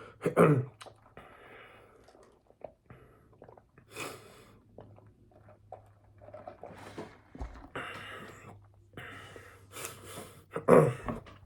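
Close-miked eating sounds: scattered chewing and mouth noises with breaths, and a short vocal sound near the start and a louder one near the end.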